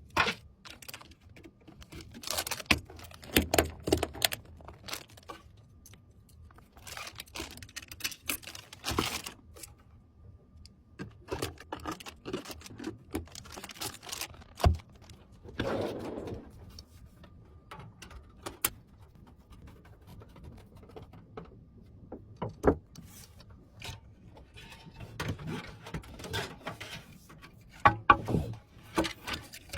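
Hands handling and fitting PC components: irregular clicks, light knocks, scrapes and rustling of parts and packaging.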